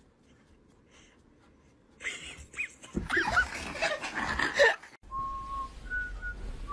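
A puppy whining and yelping in high, sliding cries for about three seconds, over rustling, after a quiet start. Near the end come a low hum and a few short, steady whistle-like notes.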